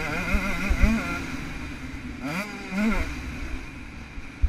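Two-stroke engine of a KTM SX 125 motocross bike revving up and down as the throttle is worked on and off, with a quick rev about two and a half seconds in before it drops back. A few low thumps sound over it.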